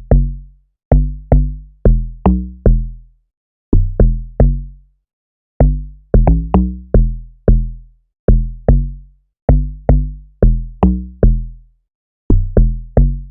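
A synthesized amapiano log drum playing a syncopated pattern on its own: short, deep pitched hits of changing pitch, each with a sharp attack that dies away quickly, in groups of two to four with short gaps between.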